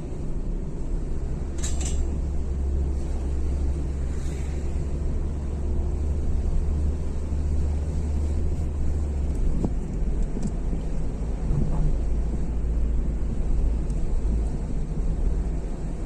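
A car driving along a street, heard from inside the cabin: a steady low engine and road rumble. Two brief hissing swishes come about two and four seconds in, and the deepest part of the rumble eases a little past halfway.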